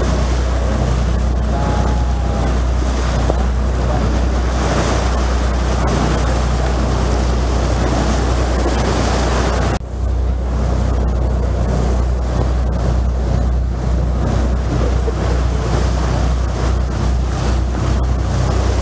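Passenger boat under way: a steady low engine drone under the rushing, hissing water of the wake, with wind buffeting the microphone. There is a brief dip about ten seconds in.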